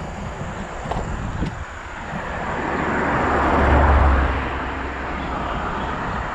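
A motor vehicle passing by, its noise and low rumble swelling to a peak about four seconds in and then fading.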